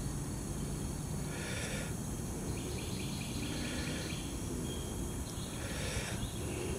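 Outdoor background noise: a steady low rumble with a faint chirping call that repeats roughly every two seconds.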